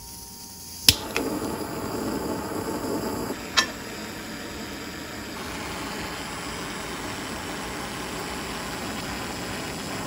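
Butane micro torch lit with a sharp click about a second in, then the steady hiss of its flame heating a copper washer for annealing. The hiss is louder for the first couple of seconds and then settles lower, with a second click about three and a half seconds in.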